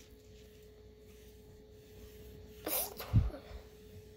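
A single sneeze close to the microphone about three seconds in: a short hissing burst, then a low thump, over a faint steady hum.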